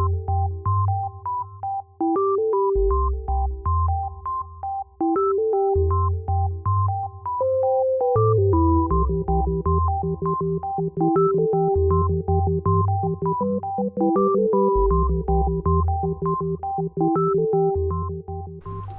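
Background music: a synthesizer and electric-piano tune with a repeating melody over a steady bass line.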